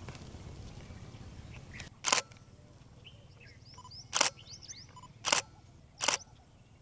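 Camera shutter firing four single shots, about two, four, five and six seconds in, with faint bird chirps between them.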